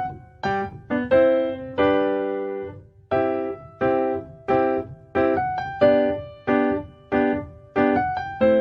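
Background music: a light piano or electric-piano melody of single struck notes and short chords, each note ringing and fading, about two notes a second.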